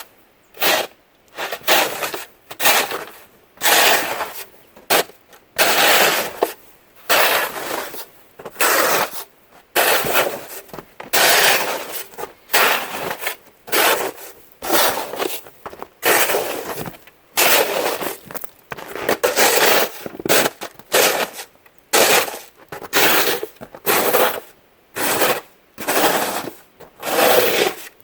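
Footsteps crunching through snow at a slow walking pace, about one step a second, each step a short crunch.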